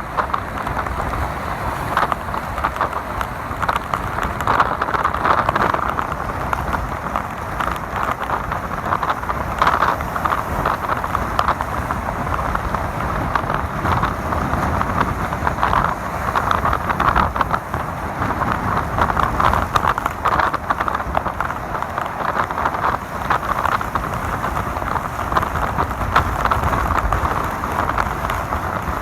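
Steady rushing noise of heavy rain and water around a vehicle in a coastal storm, with a low rumble beneath that rises and falls without stopping.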